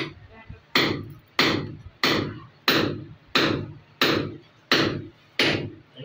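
Eight sharp knocks in an even rhythm, about one and a half a second, each ringing out briefly.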